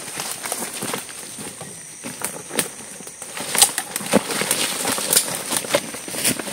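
Footsteps crunching and rustling through dry leaf litter and undergrowth on a forest trail, with irregular sharp crackles of twigs and leaves underfoot. A faint steady high-pitched tone runs underneath.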